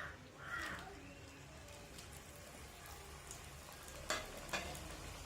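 Gavvalu dough shells deep-frying in hot oil: a faint, even sizzle. Two sharp clicks about four seconds in.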